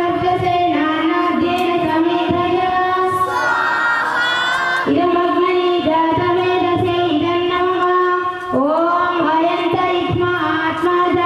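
A group of children chanting in unison during a homam fire ritual, long notes held on one steady pitch, with a new phrase starting on a rising swoop about eight and a half seconds in.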